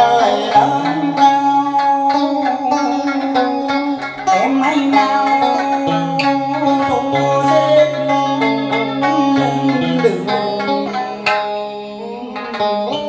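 Instrumental cải lương music: a đàn sến (Vietnamese two-string lute) and an amplified electric guitar playing a plucked melody, with held notes and a few sliding, bent notes about four seconds in. It dips quieter near the end.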